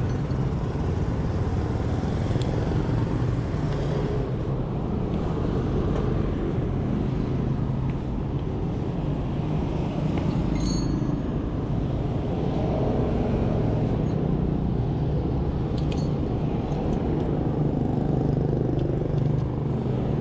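Steady street traffic rumble of passing motorbikes and cars, with a brief metallic clink about ten seconds in.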